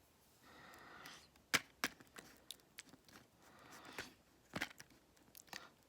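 Spoon scraping and knocking against a plastic yogurt cup while stirring thick Greek yogurt: a few soft scrapes and about seven sharp irregular clicks, the loudest about one and a half seconds in.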